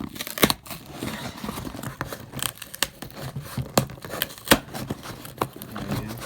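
A cardboard box being cut and torn open with a knife: scraping and tearing of cardboard and packaging, with several sharp snaps and clicks.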